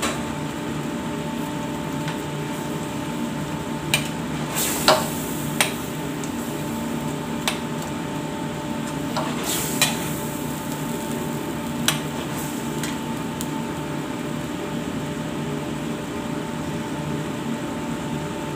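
A metal spoon stirring beef stew and vegetables in a stainless steel frying pan, with several sharp clinks of spoon on pan over the first twelve seconds or so, against a steady background hum.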